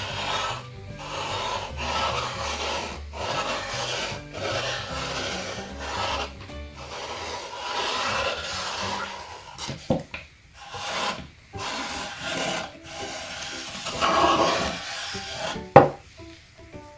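Permanent marker tip rubbing across a wooden board in repeated scratchy strokes while letters are written, about one stroke a second, more spaced out in the second half. A sharp click near the end.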